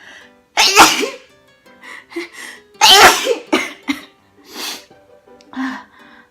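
A woman sneezing twice, loudly, about two seconds apart, set off by tickling her nostril with a twisted tissue (kōyori); several shorter, weaker breathy sounds follow. Quiet background music runs underneath.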